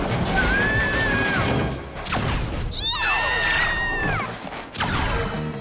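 Cartoon magic-energy sound effects: two high, held electronic whines, each sliding in and falling away after about a second, over a rushing whoosh and background music, with short swishes between them.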